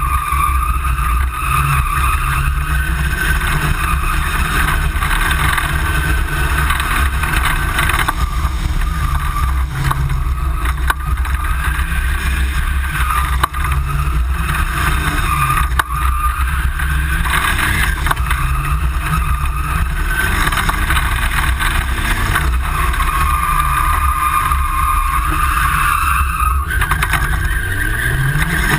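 Engine of a tube-frame drift buggy, heard from on board, revving up and down again and again as the car is drifted.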